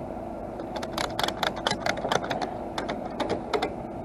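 A quick, uneven run of sharp mechanical clicks and rattles, about four to six a second, starting about a second in and stopping just before the end, over a steady engine hum.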